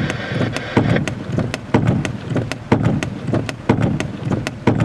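Heavy thunderstorm rain pelting a window and roof: many sharp, irregular drop hits over a steady low noise, with a heavier hit about once a second.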